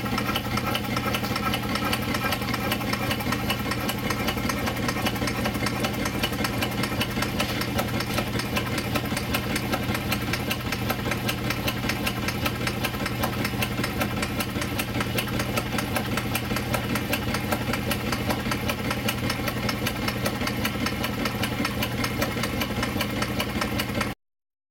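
York vertical compound marine steam engine running slowly on compressed air with the throttle barely cracked: a steady, even run of exhaust beats and clattering Stephenson valve gear. A light knock comes from bearing clearances that still need taking up. The sound cuts off suddenly near the end.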